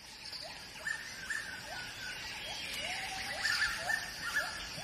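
Animal calls: short whistle-like notes that rise in pitch and then level off, repeating two or three times a second from more than one caller, over a steady high background hiss.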